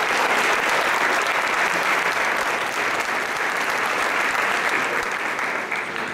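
Audience applauding, a steady spread of many hands clapping that fades away near the end.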